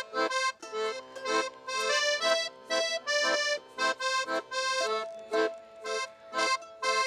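Accordion playing a folk tune in short, separated notes, with a low bass note held under the first few seconds.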